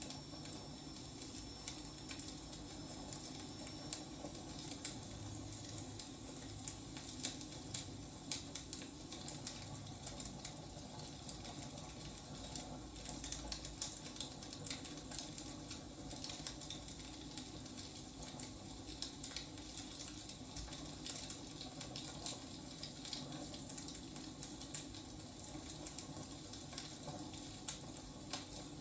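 Wood fire burning: logs crackling with irregular sharp pops and snaps over a low steady rush of flame.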